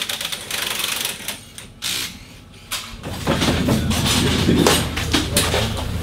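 Clicking and rattling of work on a rally car. From about halfway a steady low engine hum joins in, with clattering over it.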